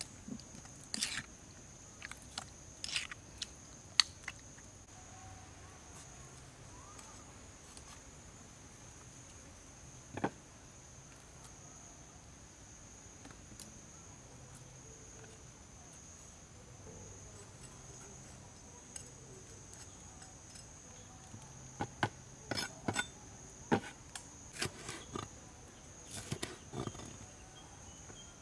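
A metal spoon clinks and scrapes in a stone bowl while stirring marinating beef, then a cleaver knocks repeatedly on a wooden board as it slices red bell pepper near the end. A steady high drone of insects runs underneath.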